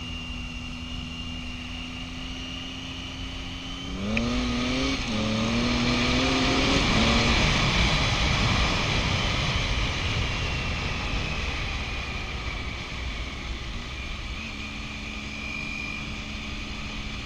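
Adventure motorcycle engine running steadily, then pulling away about four seconds in with a rising pitch that steps up through a few gear changes. Loud wind rush over the helmet-mounted microphone builds with the speed, then slowly eases as the engine settles back to a steady drone near the end.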